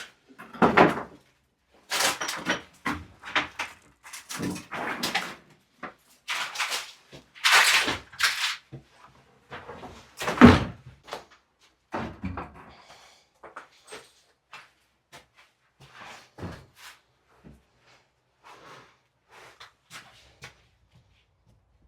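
Irregular knocks, bangs and scraping as a makeshift retaining wall that is fastened together is wrenched apart and shifted by hand. The knocks come thick in the first half, the loudest bang about ten seconds in, then thin out into quieter clatters.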